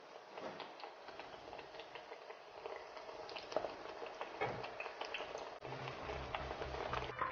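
Eggplant slices deep-frying in hot oil: a steady sizzle with many small crackling pops.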